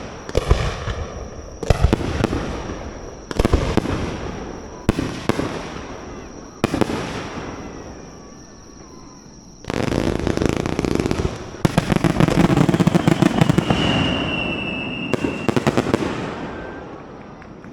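Aerial fireworks bursting one after another, a sharp bang about every second and a half, then from about ten seconds in a dense barrage of rapid crackling bursts that dies away near the end.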